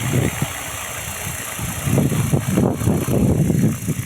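Wind buffeting the microphone in irregular gusts, heavier from about two seconds in, over the faint steady whine of a Protos 500 RC helicopter in flight.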